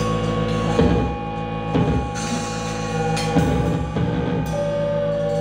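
Experimental live music from modular synthesizer, bass guitar with effects and drums: several held tones over a pulsing low drone, with loose drum hits about a second in, near two seconds and a little past three seconds. A new higher tone comes in near the end.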